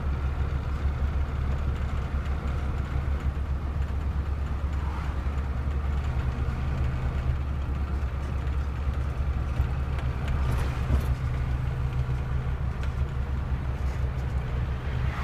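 Steady low rumble of road vehicles driving, with engine and tyre noise, heard while following a loaded flatbed truck on the road.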